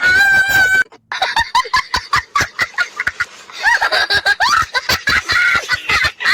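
A woman laughing in rapid giggling bursts for about five seconds. It comes just after a long, loud vocal sound with a wavering pitch, which stops just under a second in.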